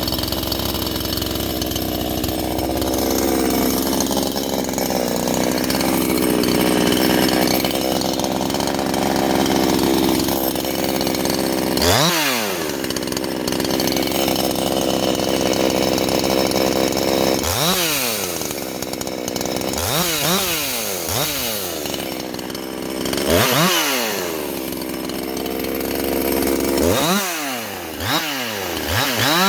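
Ported Husqvarna 350 chainsaw's 49 cc two-stroke engine running at high revs. From about halfway, the revs dip and climb back up about six times.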